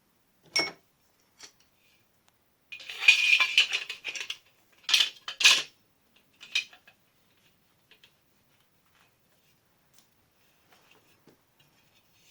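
Aluminium profile and metal parts handled, clinking and scraping: a sharp knock near the start, about a second and a half of rattling scrape about three seconds in, then two clanks and a last knock.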